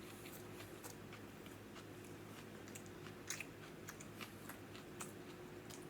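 Faint close-up chewing of an Italian sub: soft wet mouth clicks and smacks at an irregular pace, over a steady low hum.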